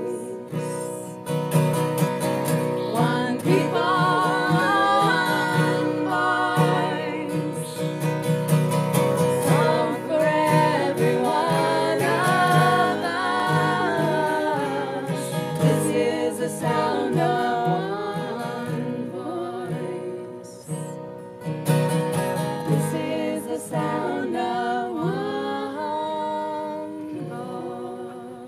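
Acoustic guitar strumming under three women's voices singing in close harmony; the music fades and the last chord dies away near the end.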